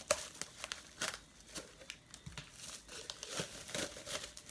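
Packaging crinkling and rustling as it is handled, in quick irregular crackles.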